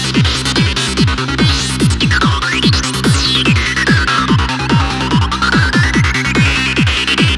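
Goa trance loop from Ableton Live with a steady four-on-the-floor kick, about two and a half beats a second, over a pulsing bassline. A synth lead made in Ableton's Operator sweeps steeply up to a shrill peak about three seconds in, glides slowly back down, then rises again near the end.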